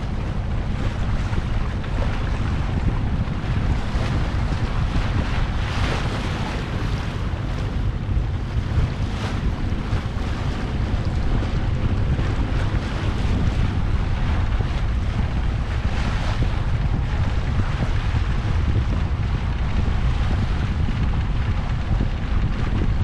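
Wind buffeting the microphone over rushing, splashing water as a sailboat runs fast through turbulent tidal current. A steady, loud noise with a few brief louder surges.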